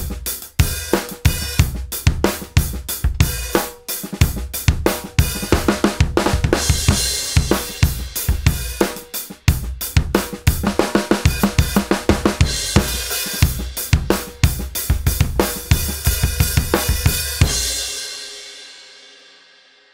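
A drum kit groove: a 20-inch Rogers Powertone bass drum, its front head tuned a major third above the batter head for a punchier, brighter, more focused tone, together with a brass snare drum and cymbals. The playing stops a couple of seconds before the end, and the last hit rings out and fades away.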